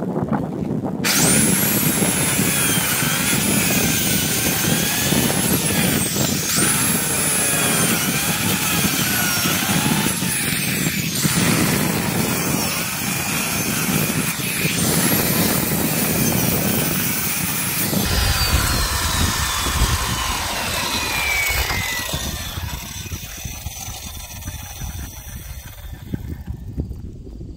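Corded Skilsaw circular saw started about a second in and cutting through asphalt shingles and wooden roof sheathing, its high whine dipping again and again as the blade loads up in the cut. About two-thirds of the way through the trigger is released and the blade spins down with a long falling whine, while wind on the microphone grows louder.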